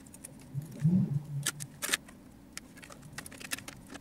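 Small plastic model figure being handled, its parts giving off scattered light clicks and taps. A brief low hum of a voice comes about a second in.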